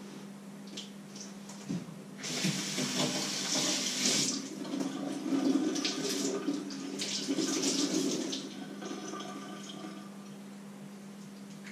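Kitchen tap running into a sink while a utensil is rinsed under it, starting about two seconds in and shut off about eight seconds in. A steady low hum lies underneath.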